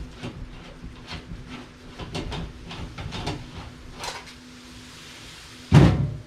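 Small clicks and light knocks from handling an old fluorescent ceiling light fixture, followed by one loud thump near the end.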